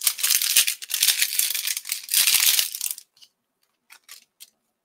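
Clear plastic packaging bag crinkling as it is handled: a dense crackle for about three seconds, then a few faint crinkles.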